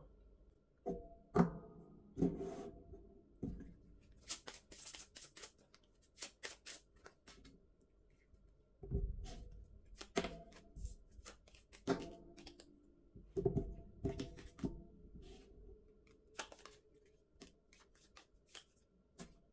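Round oracle cards being shuffled by hand and dealt out one by one onto a marble countertop: irregular rustling and soft taps of card on stone.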